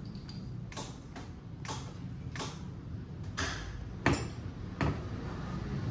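Irregular light clicks and taps of tools and metal parts being handled on a scooter's rear bracket, with two louder knocks about four and five seconds in.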